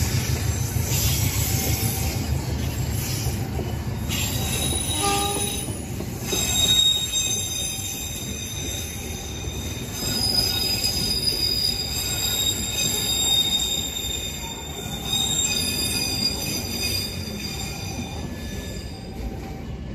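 Passenger coaches of a locomotive-hauled train rolling past on curved track, their steel wheels squealing on the rails in several high steady tones that come and go. A low rumble of the wheels is strongest at the start and eases off within a couple of seconds.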